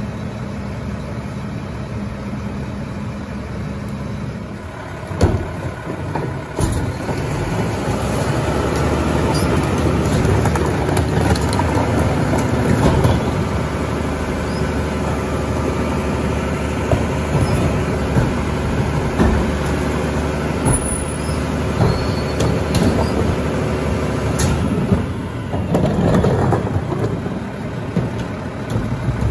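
Mack LR garbage truck with a Heil rear loader at work: the diesel engine runs steadily, then comes up and holds louder from about seven seconds in. A couple of sharp clanks come a few seconds in.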